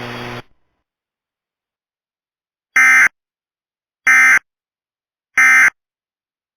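Emergency Alert System end-of-message signal on NOAA Weather Radio: three identical short, buzzy digital data bursts about 1.3 s apart (the SAME 'NNNN' code), which mark the end of the alert. Radio hiss cuts off about half a second in, before the bursts.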